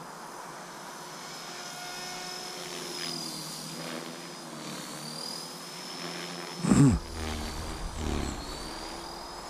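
Electric Align T-Rex 450 RC helicopter in flight: a steady high rotor and motor whine that dips in pitch and recovers a couple of times. About two-thirds of the way through, a brief loud vocal sound close to the microphone cuts in.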